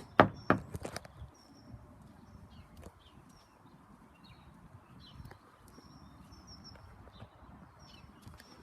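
Three footsteps on frosty ground in the first second, then small birds chirping faintly off and on over a quiet outdoor background.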